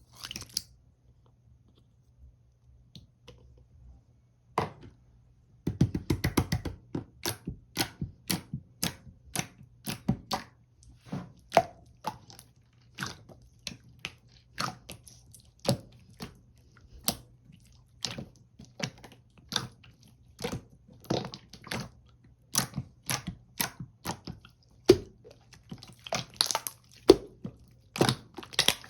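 Marbled pearl slime being squished and pressed by hand, giving sharp, wet clicks and pops at roughly two a second, with a quick flurry of them about six seconds in; the first few seconds hold only a few faint clicks.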